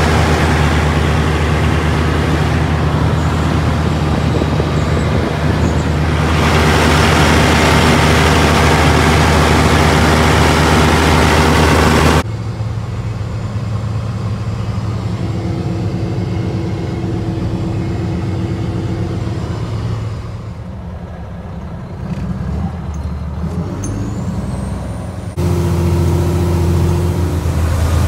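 Heavy farm diesel engine running steadily under load. About twelve seconds in the sound drops suddenly to a quieter engine hum, then switches back to the louder engine near the end.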